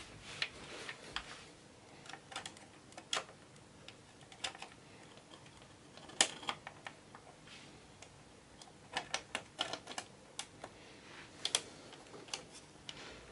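Scattered light clicks and taps of hardware being handled as the Antec Kühler H2O 920's water block is seated on the CPU and fitted to its mounting by hand, with a quick run of clicks in the second half.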